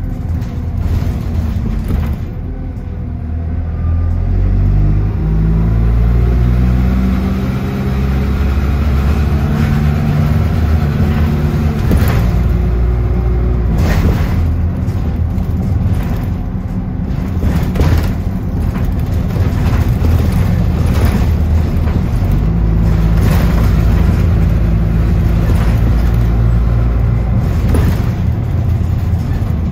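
Bus engine running on board, its note climbing in steps as it accelerates through the gears twice, with occasional knocks and rattles from the body.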